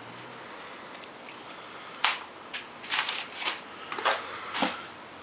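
Packing paper rustling and crinkling inside a cardboard shipping box as it is handled. The paper sounds come as a series of short, sharp rustles, starting about two seconds in.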